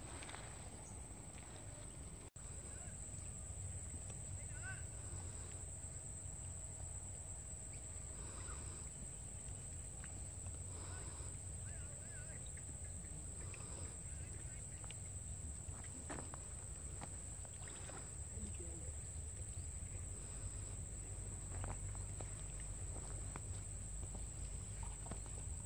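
Outdoor waterside ambience: a steady high-pitched insect drone, wind rumbling on the microphone, and occasional faint bird chirps.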